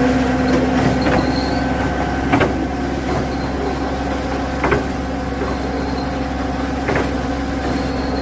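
An engine running steadily with a pitched hum, and a sharp click about every two seconds.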